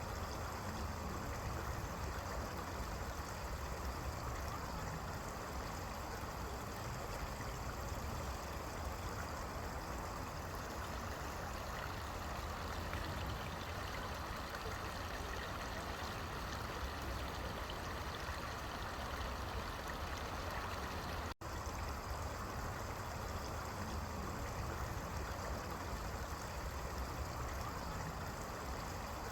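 A stream running steadily, a continuous even rush of water, cut off for an instant about two-thirds of the way through.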